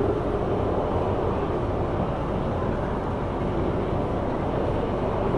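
Steady distant rumble of a Rocky Mountain Construction single-rail roller coaster train running the track on an empty test run.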